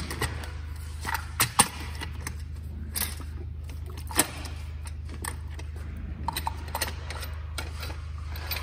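Scattered metal clicks and clanks as a steel battery-module hanger, a lifting frame with hooks, is set down on EV battery modules and shifted into place. The sharpest knocks come about a second and a half in, with more near three and four seconds, over a steady low hum.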